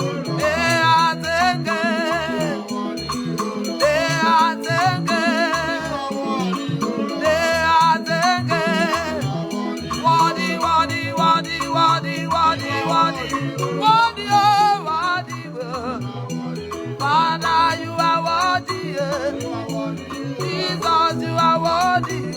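Gospel praise and worship music: a band with a steady repeating bass line and rattle/shaker percussion, under a wavering lead melody with some singing.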